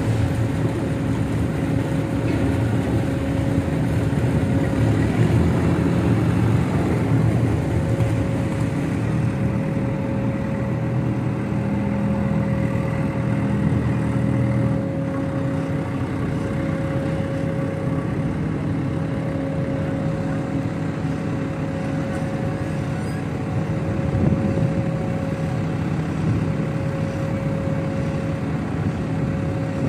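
Diesel engine of a backhoe loader running steadily, with a constant thin whine over it. The engine note is fuller in the first half and eases off about halfway through.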